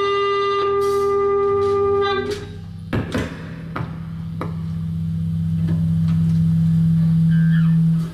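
Live rock band: an electric guitar note rings out for about two seconds, followed by a few drum hits. Then a low steady tone from the amplifiers grows louder and cuts off suddenly at the end.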